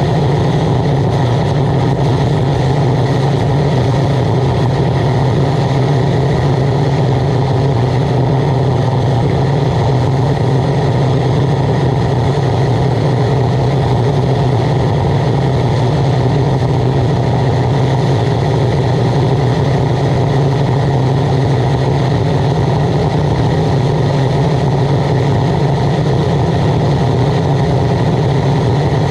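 Waste oil burner running steadily, its blower fan and oil flame making a constant low hum with a rushing noise over it.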